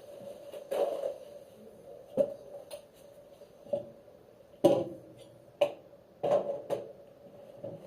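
A series of knocks and clicks from things being handled and set down, about eight irregular strokes, the loudest just before the middle, over a faint steady hum.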